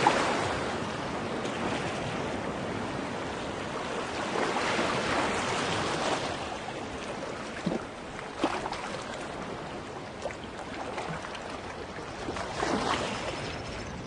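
Steady rushing noise, swelling about four seconds in and again near the end, with a few faint clicks in between.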